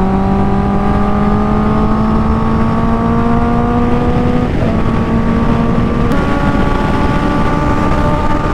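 Honda 650 inline-four sport bike at hard acceleration on the highway, its engine note climbing steadily over heavy wind rush as the speed rises from about 110 to nearly 200 km/h. The engine note breaks and changes abruptly twice, about four and a half and six seconds in.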